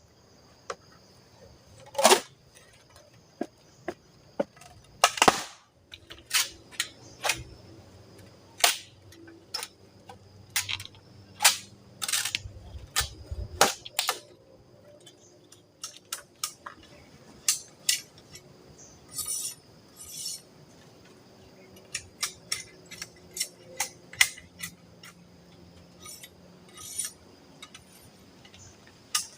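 Irregular sharp knocks and clicks, a few dozen in all, the loudest about two and five seconds in, over a faint steady high-pitched hum.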